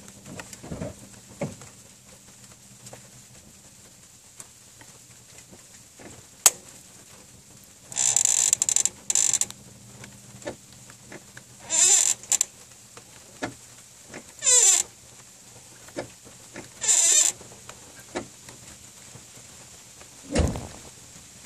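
Clutch pedal hydraulics creaking with a wavering squeak each time the pedal is pressed, repeatedly, about every three seconds. This is the kind of squeak usually put down to the clutch slave cylinder. There is a sharp click before the squeaks and a dull thump near the end.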